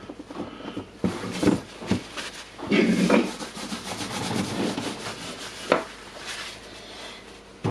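Hand work on the head of a Bosch GBH 2-26 hammer drill while a spring ring is fitted: parts scraping and rubbing, with a louder scrape about three seconds in and a few sharp clicks.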